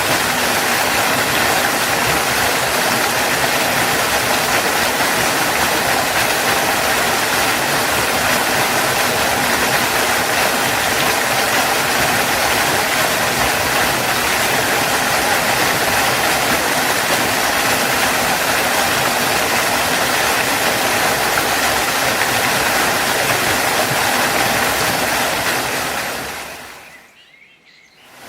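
Waterfall: a steady, even rush of falling water. Near the end it fades out almost to silence and then fades back in.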